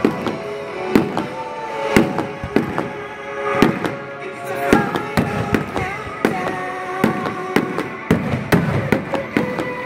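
Aerial fireworks bursting in a series of sharp bangs, about one a second and sometimes in quick pairs, with music playing underneath.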